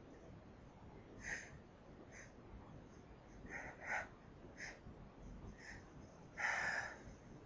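A person sniffling and taking short, sharp breaths through the nose between sneezes in an allergic sneezing fit set off by lilies: half a dozen quick sniffs, then a louder, longer gasping breath near the end.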